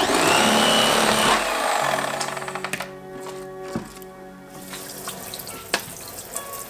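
Background music over water running from a kitchen faucet. The loudest part is a rush of noise in the first two seconds, followed by the music with fainter running water and a few light clicks.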